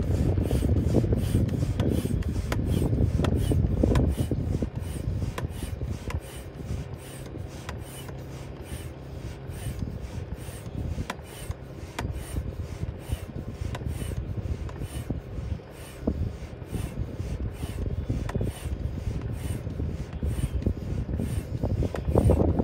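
Hand pump worked in quick, even strokes, rasping air into an inflatable tabletop being pumped up to 10 psi. It is loudest over the first few seconds.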